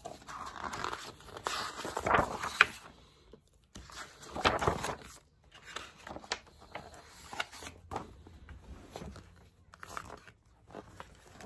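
Pages of a hardcover picture book being turned and handled: several bursts of paper rustling and swishing, loudest about two seconds and four and a half seconds in.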